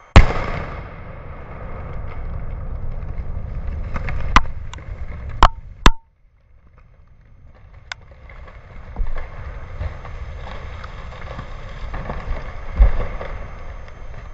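A dynamite blast at the base of a standing dead tree: one sharp, very loud explosion right at the start. Then a long rumble of debris crashing down, with several sharp knocks a few seconds in and another heavy thump near the end.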